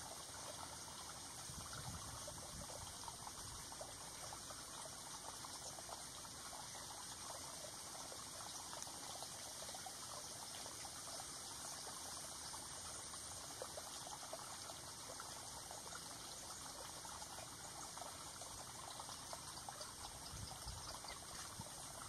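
Faint, steady trickle of running water, an even hiss dotted with tiny splashes.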